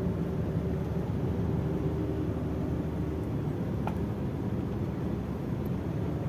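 Steady engine and road noise of a Nissan X-Trail T30 being driven, heard from the cabin, on a test drive after a head replacement and top overhaul, with the car performing normally.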